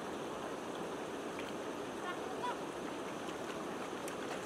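Steady rush of a shallow river's current with splashing water as someone wades through it.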